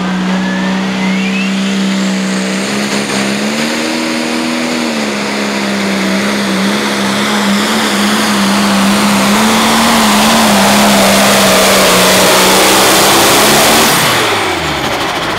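Turbocharged diesel engine of a John Deere 4755 limited pro stock pulling tractor running flat out while pulling the sled, its pitch holding steady with small wavers and getting louder as the pull goes on. About fourteen seconds in the throttle is cut and the engine winds down.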